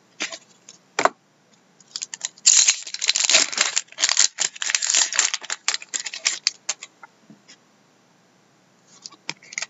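Foil wrapper of an Upper Deck Artifacts hockey card pack being torn open and crinkled in the hands: a dense run of crackling that starts about two seconds in and dies away by about seven seconds, with a few single handling clicks before and near the end.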